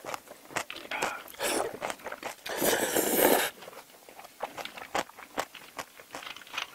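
A person slurping tray jjajang noodles (black-bean-sauce noodles), in a short slurp about a second and a half in and a longer one around three seconds. This is followed by open-mouthed chewing with small wet clicks.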